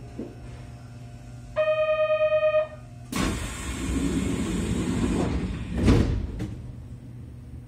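Kintetsu 6432 series train standing at a station, with a steady low hum: a pulsing electronic buzzer sounds for about a second, then comes a loud hiss of air for about two seconds and a heavy thud near six seconds in, the sound of the train's doors closing.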